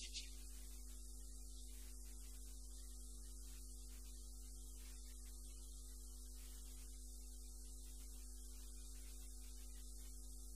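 Steady electrical mains hum with faint steady tones and hiss on the recording, unchanging throughout; no speech.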